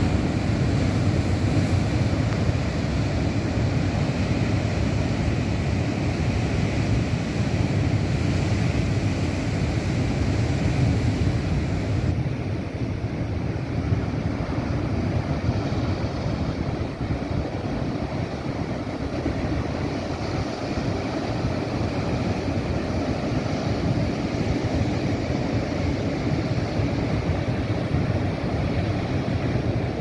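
Big surf breaking and rushing in foam over a rocky shore: a steady, continuous roar with a heavy low rumble.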